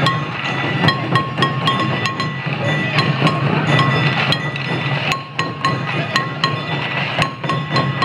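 Sansa odori parade music: small hand-held metal gongs (kane) struck again and again in a quick rhythm, each strike ringing, over a steady low drone.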